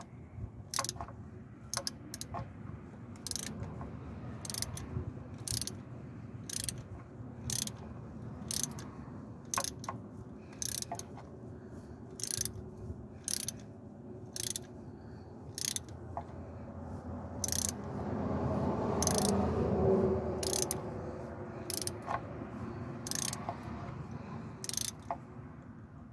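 Ratchet wrench clicking in short bursts about once a second, tightening the bolts of the timing chain tensioner.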